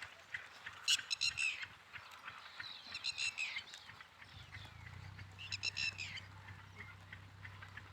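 Poultry calling: three short, high-pitched calls, about a second in, around three seconds and near six seconds. A steady low hum sets in about halfway through.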